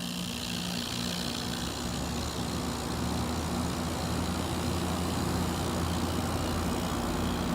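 GE window air conditioner with a rotary compressor running on low cool: a steady fan whoosh, with a low compressor hum that comes in and grows over the first few seconds.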